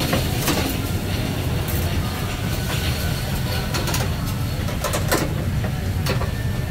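Metal wire grill racks and tongs clinking as the wing racks are turned over a charcoal grill, several sharp clinks scattered over a steady low mechanical hum.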